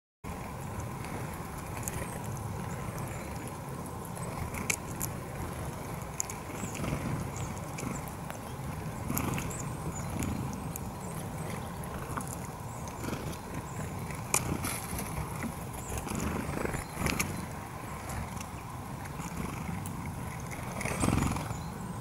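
Steady low outdoor rumble with a faint steady hum, broken by scattered sharp clicks and a few faint short high chirps, with a louder rustle near the end.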